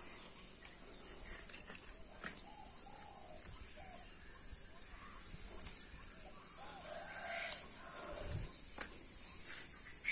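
Garden ambience: a steady high-pitched insect drone, with short, faint bird calls coming in a few times and a few soft clicks.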